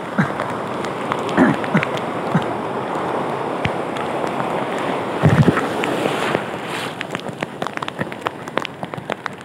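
Sea surf breaking and washing around a wading angler: a steady rushing noise of foaming water, with a louder surge and low thump about five seconds in. Near the end the rush eases and a run of sharp ticks comes through.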